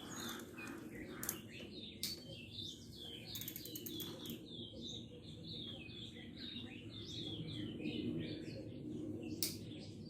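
Small birds chirping repeatedly in the background, with a few sharp clicks about a second in, at two seconds, a cluster a little later, and one louder click near the end.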